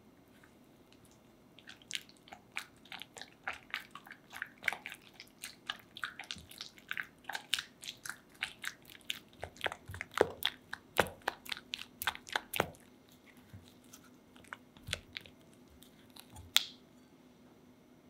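Silicone spatula working beaten egg into coffee choux pastry dough in a glass bowl: a quick run of short strokes against the bowl, about three a second. The strokes thin out to a few scattered ones near the end.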